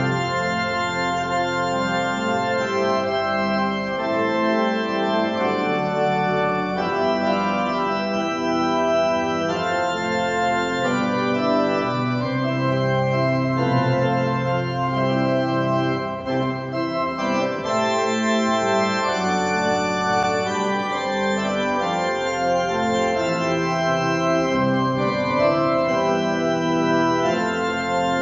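Organ playing a hymn tune, a Gaelic melody, in held chords that change every second or so.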